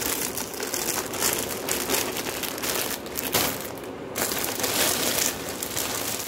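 Clear plastic garment bag crinkling and rustling as it is handled, with a short lull about four seconds in.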